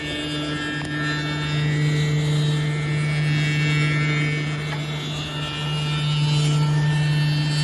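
Woodmaster WM-200TC CNC tenon milling machine running: a steady motor hum under a cluster of high whining tones that swell and ease in loudness.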